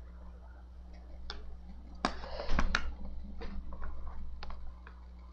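A plastic makeup compact being handled close to the microphone: scattered clicks and taps, with a louder cluster of knocks about two to three seconds in. A steady hum runs under it.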